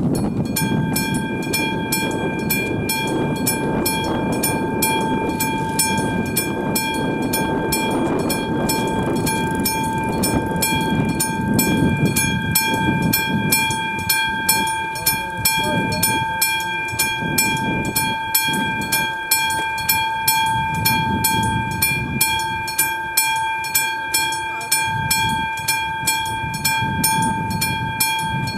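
AŽD 71 level-crossing warning signal's electric bell starts about half a second in and rings rapidly and continuously: the crossing has been activated for an approaching train.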